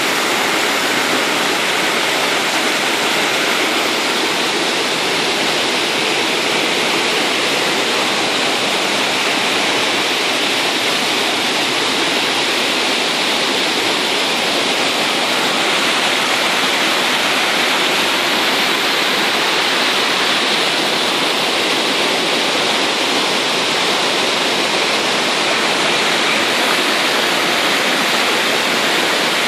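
Water cascading over rocks in a series of small waterfalls: a steady, loud rushing that does not change.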